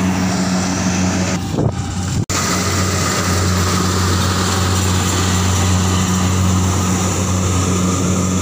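Kubota rice combine harvester's diesel engine running steadily under load as it cuts and threshes rice, a loud continuous low hum. The sound drops out for an instant about two seconds in.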